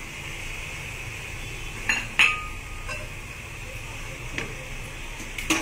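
A metal spoon knocking and clinking against a metal cooking pot about five times as curd is spooned into the chicken. The loudest knock comes about two seconds in and rings briefly. A steady hiss runs underneath.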